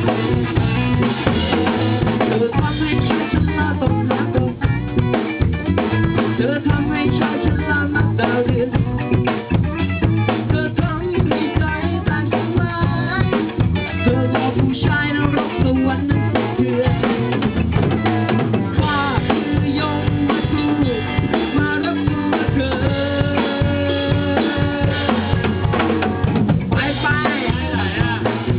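A band playing a passage with no words: a drum kit keeping a steady beat with bass drum and snare, under bass and melodic lines.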